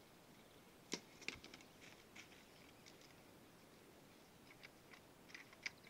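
Near silence with a few faint, short clicks and rustles from hands handling the cable and plastic fittings on the pump's riser pipe, the sharpest about a second in and a small cluster near the end.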